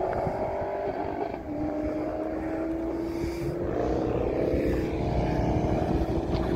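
V8 muscle cars accelerating hard in a street race, the engine note climbing in pitch, dropping at upshifts about a second and a half in and again around three and a half seconds, then climbing again as the cars come closer.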